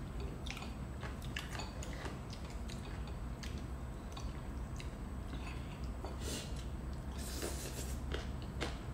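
Close-miked eating: chewing, with short clicks of chopsticks against ceramic bowls and plates, and a slurp of rice noodles near the end.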